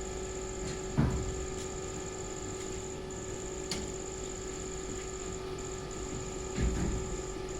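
Induction melting furnace running: a steady electrical hum with a high whine above it that breaks off briefly a few times. Two dull thumps come about a second in and again near the end.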